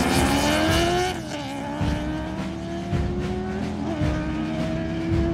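Two motorcycles, a sportbike and a Harley-Davidson touring bike, accelerating hard from a standing start. The engine pitch climbs, drops at a gear shift about a second in and again near four seconds, and the sound grows fainter as the bikes pull away.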